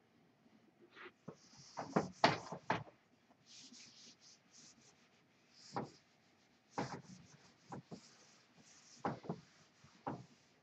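A whiteboard being wiped clean with a cloth: a run of quick hissy rubbing strokes, broken by several short, louder thumps against the board, the loudest about two seconds in.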